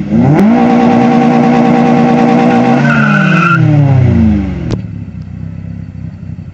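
Car engine revved hard at the start line: the revs rise sharply, hold steady at high rpm for a couple of seconds, then fall away as the throttle is released, with a brief higher-pitched tone over it about three seconds in.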